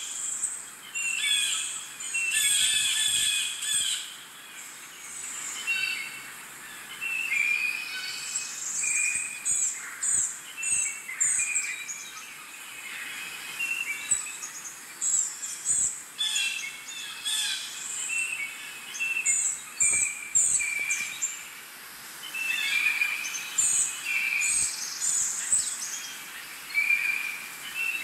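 Several birds calling, with many short, high chirps and trills overlapping one after another.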